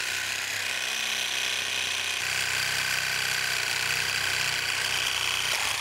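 Reciprocating saw with a carbide-tipped blade running steadily as it cuts through a hardened steel shaft, which has resisted the saw. About two seconds in, its sound changes and takes on a deeper note.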